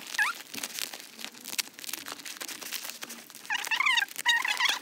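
A parcel's brown paper and plastic tape wrapping being picked at and torn open by hand, a dense irregular crinkling and crackling. A few short high squeaks sound near the end.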